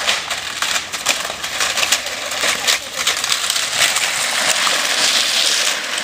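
Wooden planks scraping and rattling over cobblestone paving as children slide downhill on them: a continuous rasping grind dotted with small clacks, loudest about four to five seconds in.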